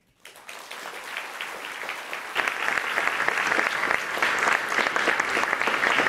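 Audience applauding. The clapping starts a moment in and builds, getting clearly louder about two and a half seconds in.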